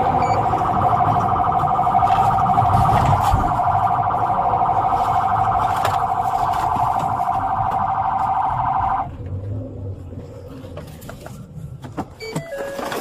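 Police car siren sounding in a fast, even warble, heard from inside the patrol car over engine and road rumble. It cuts off suddenly about nine seconds in, leaving quieter cabin noise with a few clicks near the end.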